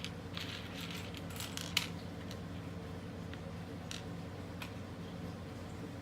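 Plastic LEGO pieces clicking and clinking as they are handled and moved about, a quick flurry of small clicks over the first two seconds with the loudest just before two seconds in, then a few scattered clicks.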